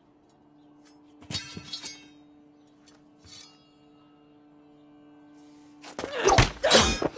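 Steel swords clash twice with long metallic ringing about a second in, and a lighter ringing blade strike follows just after three seconds, over a low held music drone. Near the end comes a loud flurry of heavy thuds and blade hits as the fight breaks out.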